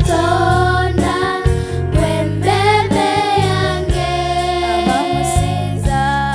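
Music: a worship song with singing over a steady beat and bass line.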